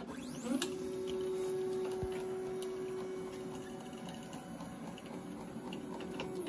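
Stepper motors driving a LowRider 3 CNC plasma table's gantry on a programmed rapid move to its park position: a steady whine that rises in pitch as the motors speed up about half a second in, holds, and stops just before the end.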